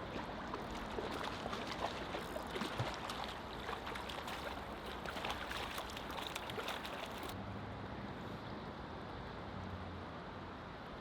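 Stream water running, with many small splashes and trickles for the first seven seconds, then settling to a steadier rush.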